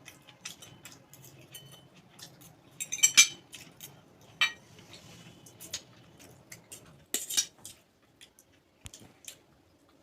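Cutlery clinking and scraping against a plate while eating, in short irregular clicks, the loudest about three and seven seconds in.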